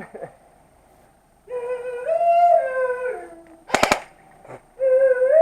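A long wavering howl that rises and then falls, and a second one starting near the end, with a quick burst of rapid airsoft gunshots between them.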